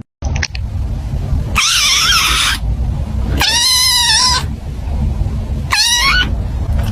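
A cat meowing three times, the first two calls about a second each and the last one shorter, over a steady low rumble.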